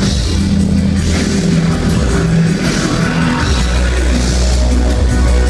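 Electro-industrial band playing live through a theatre PA: loud, dense mix of synthesizers, heavy bass, drums and guitar, with the deep bass growing stronger about three and a half seconds in.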